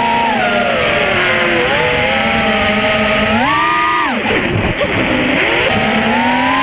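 Brushless motors and three-blade 5-inch propellers of an FPV racing quadcopter whining in flight, recorded on the onboard camera with a rush of prop wash and wind. The pitch rises and falls with the throttle. It drops sharply about four seconds in, where the throttle is cut, and climbs again as power comes back on near the end.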